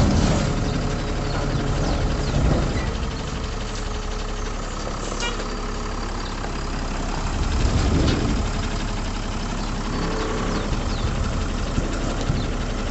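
Diesel engine of an Iveco 240E28 hooklift truck running steadily while it powers the hydraulic arm lifting a flatbed off the ground. It swells briefly louder twice.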